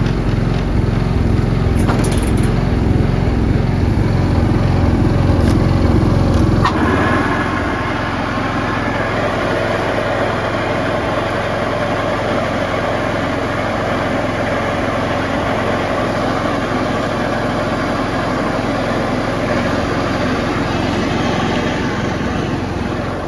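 Single-cylinder petrol engine of a Stiga Park ride-on mower running. About seven seconds in, the deep pulsing engine note drops away and the sound becomes quieter and steadier.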